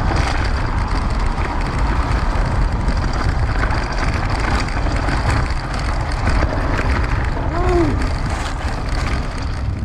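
Steady wind rush on the microphone and rumbling ride noise from riding on a dirt trail. About three-quarters of the way through there is one short tone that rises and falls.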